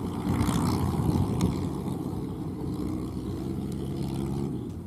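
Kubota ZL3001 tractor's four-cylinder diesel engine running steadily.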